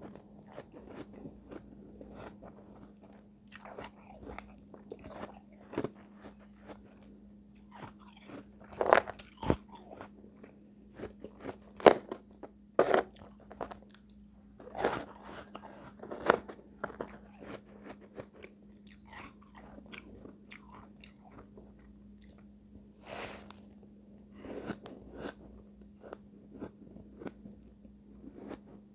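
Close-miked biting and chewing of refrozen shave ice: crisp, icy crunches come at irregular intervals, with a few much louder bites scattered through.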